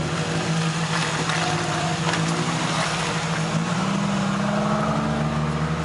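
Off-road 4x4's engine running steadily at low speed on a downhill crawl, its pitch rising a little about four seconds in, with scattered knocks and rattles.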